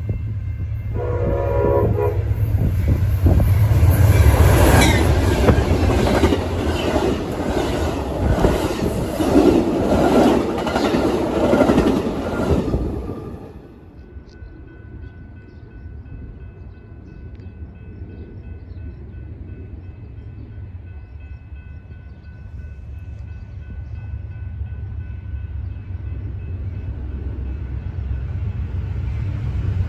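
A passenger train's diesel locomotive sounds one short horn blast about a second in, then the train runs past at speed with loud wheel clatter over the rail joints and a deep engine rumble. The sound cuts off abruptly about 13 seconds in, leaving a quieter rumble that grows steadily as an Amtrak train led by GE Genesis diesel locomotives approaches near the end.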